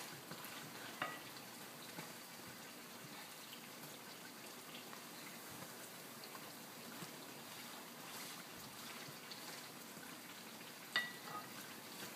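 Johnny cakes sizzling steadily as they fry in grease in a skillet. A fork clinks against the pan twice, about a second in and, louder, near the end.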